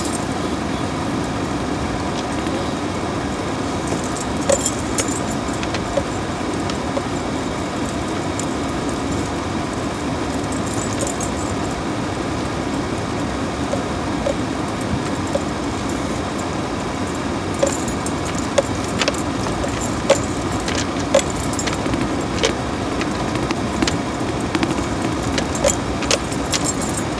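Cabin noise of a vehicle driving slowly along a dirt trail: a steady rumble of engine and tyres with scattered light clicks and rattles from the cabin, more frequent in the last third.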